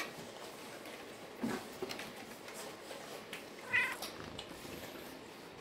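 Faint scuffling and knocks of puppies wrestling, with one short, high-pitched squeal a little before four seconds in.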